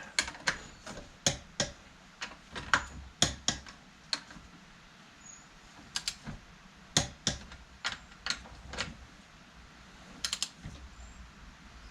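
Sharp metal clicks of a ratcheting torque wrench tightening the hydraulic pump's bolts to about 30, coming irregularly, some in quick pairs and clusters.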